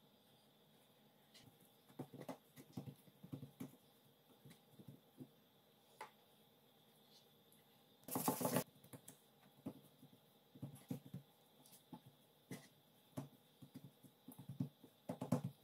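Hands dredging chicken strips in seasoned flour in a steel bowl: soft, scattered pats, rustles and taps of fingers and chicken against the bowl. About eight seconds in, one louder rush of noise lasting under a second.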